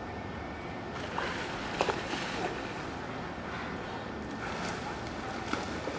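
Steady outdoor background hiss with faint voices, and a few sharp clicks about two seconds in.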